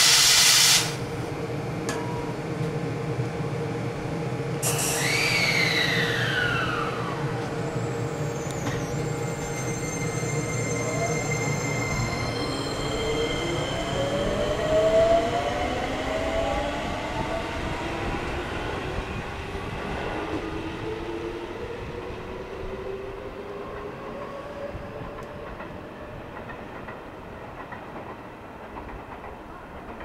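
Seibu 20000 series electric train pulling away, its Hitachi 3-level IGBT VVVF inverter and traction motors whining. A high tone falls in pitch a few seconds in, then several tones rise steadily as the train gathers speed, along with rolling wheel noise that slowly fades.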